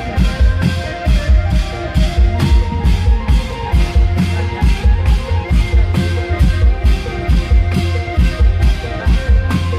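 Thai klong yao long-drum band playing through an amplified sound system: a fast, even drum beat of about three strokes a second over a deep bass and a held melody line.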